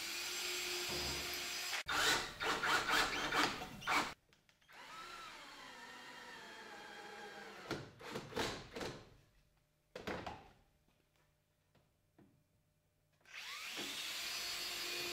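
DeWalt cordless drill pre-drilling pilot holes in wood: the motor whines in several runs, some steady and some in short uneven bursts as the bit bites, with a quiet stretch of about three seconds before a final steady run near the end.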